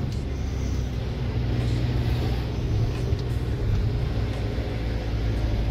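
Peugeot Boxer van's diesel engine running with road noise while driving slowly, a steady low drone heard inside the cab. The engine has just had fresh oil, a new oil filter and a new diesel filter, and the owner notes it sounds smoother.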